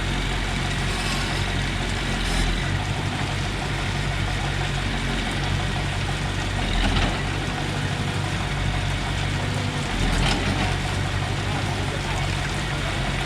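Volvo wheeled excavator's diesel engine running steadily at work, with a few brief louder surges.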